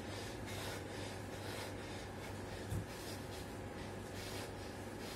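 Hard, rhythmic breathing of a man doing push-ups, a short hissing breath about twice a second, over a steady low hum. One dull thump comes near the middle.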